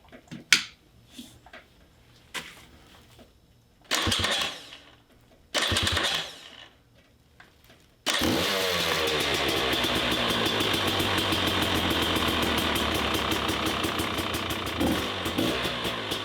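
Rebuilt dirt bike engine on choke, cold on its first startup after the rebuild. It turns over twice briefly without catching, then fires about eight seconds in and keeps running steadily, with a short rev near the end.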